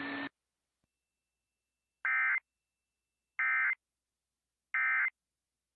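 Emergency Alert System end-of-message (EOM) code: three identical short bursts of shrill digital data tones, each about a third of a second long and spaced about a second and a half apart, signalling the end of the alert message.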